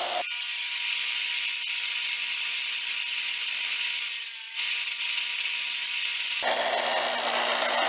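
Bench grinder with a wire brush wheel running, scrubbing rust off a steel table-leg foot pad held against it. A steady hiss of the wire wheel over the motor's hum, changing abruptly a couple of times.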